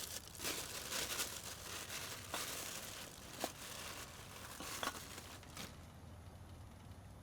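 Crinkling, rustling handling noise, like packaging or bags being handled, with a few sharp clicks; it dies down after about six seconds.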